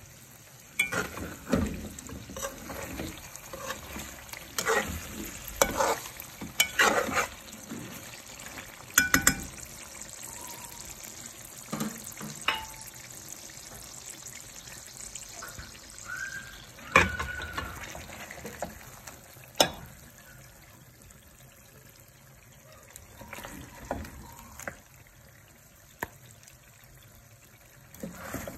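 Chicken karahi sizzling in hot oil in an aluminium pot, with repeated short scrapes and knocks of a spoon against the pot as the pieces are stirred and dished out.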